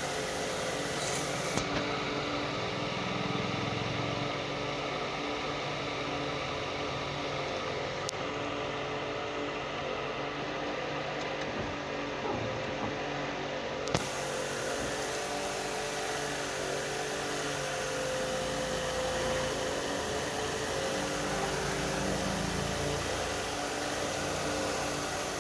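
Steady mechanical hum with a few faint clicks.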